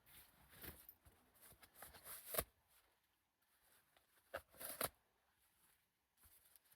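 Faint rustling with a few short, sharp clicks or snaps. The loudest comes about two and a half seconds in, and two more come close together near five seconds.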